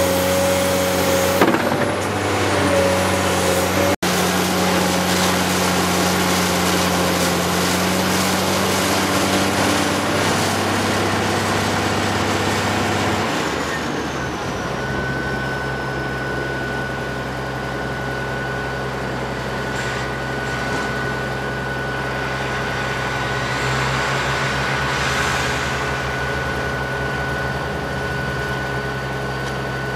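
Diesel engine of a Caterpillar 385C LME large hydraulic excavator running steadily under load as the machine digs and swings. The engine note changes a little before halfway, and a thin steady high whine joins it after that.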